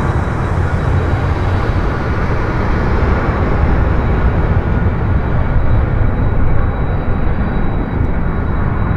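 Boeing KC-135R Stratotanker's four CFM56 (F108) turbofan engines running at taxi power, a steady deep rumble with a faint thin high whine; the upper hiss thins over the first few seconds.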